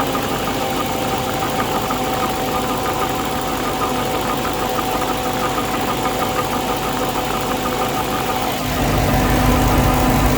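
Dodge Charger SRT Hellcat Redeye's supercharged 6.2-litre V8 idling, with a rapid, regular chirping from under the hood. The owner suspects the drive belt but is unsure; others have blamed the torque converter. The low rumble grows louder about nine seconds in.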